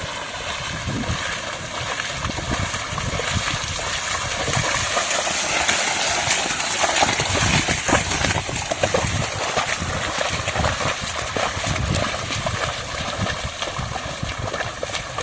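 Continuous sloshing and splashing of muddy water as a bull drags a plough through a flooded paddy field, with wind buffeting the microphone.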